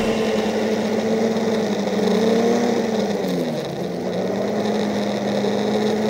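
A vehicle engine running steadily, its pitch dipping about three seconds in and then holding a little lower as the engine slows.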